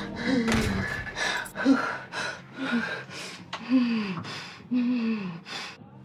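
A woman gasping and whimpering in distress. Sharp breathy gasps alternate with short moans that fall in pitch, about once a second.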